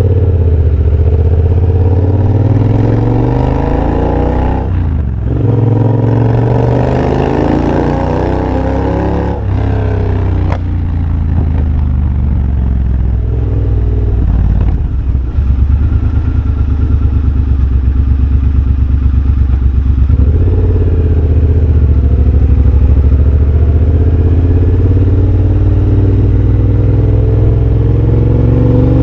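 2023 Triumph Bobber's 1200 cc parallel-twin engine, de-catted and breathing through an X-pipe and Motone shorty exhaust, under way: it accelerates with a gear change about five seconds in, then shuts off near ten seconds. It runs low with a pulsing beat on a closed throttle for several seconds, then pulls steadily again and rises in pitch near the end.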